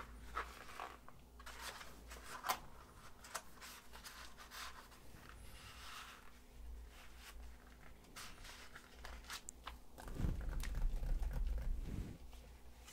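Clear plastic binder sleeve crinkling and rustling as a cardboard cover sheet is slid into it, with scattered light clicks and taps. About ten seconds in, a hand rubs flat across the plastic for a couple of seconds, louder and fuller.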